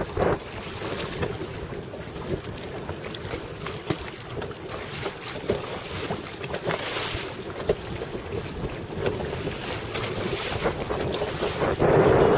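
Wind buffeting the microphone over water rushing and slapping along a sailing dinghy's hull under way, with scattered small splashes and knocks. The wind noise swells louder near the end.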